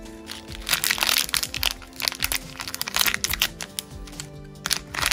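Clear plastic parts bag crinkling and crackling as it is handled, with small plastic building pieces clicking, over steady background music.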